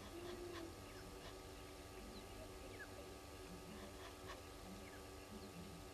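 Faint birdsong: scattered short chirps and thin ticks from several birds, over a steady low hum.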